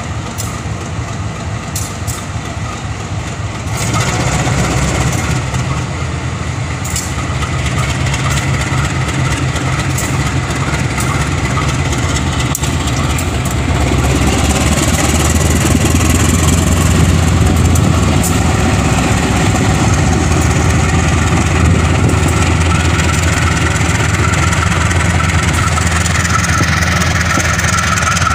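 Engine of a KAI CC203 diesel-electric locomotive running under power as it pulls a passenger train away from the station. It steps up in loudness about four seconds in, and again about fourteen seconds in as the locomotive draws past, with a strong low hum.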